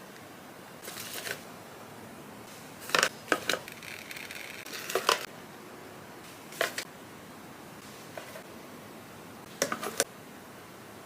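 Hands packing jewelry into a gift box: scattered small clicks, taps and a brief rustle of packaging being handled, with quiet gaps between.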